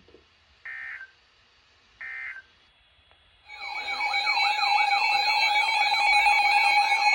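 Emergency Alert System end-of-message data bursts: short digital chirps about a second apart, marking the end of the warning. About three and a half seconds in, a loud electronic alert tone starts: a steady tone with a fast, repeatedly swooping warble over it.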